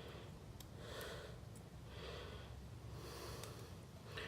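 A man breathing heavily, about one breath a second, with a few faint light clicks and a low steady hum underneath.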